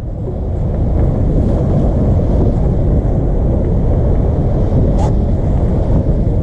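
Wind buffeting the microphone over the rush of water along the hull of a Volvo 65 ocean-racing yacht under sail: a steady, dense, low rumble.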